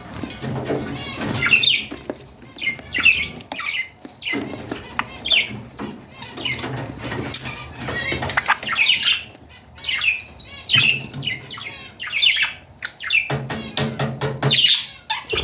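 Young budgerigars squawking in short calls about once a second, with wings fluttering, typical of chicks begging while being fed soft food.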